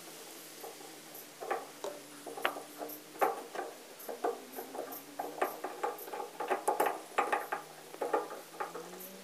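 Irregular metallic clicks and light knocks of tools and parts being handled at a hand-tractor crawler's gearbox clutch, over a faint steady low hum. The clicks come thicker in the second half.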